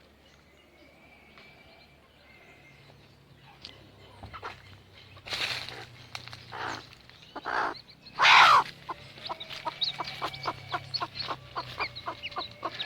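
Chickens with newly hatched chicks: quiet at first, then a few loud harsh bursts about halfway through, followed by rapid, high peeping of the chicks.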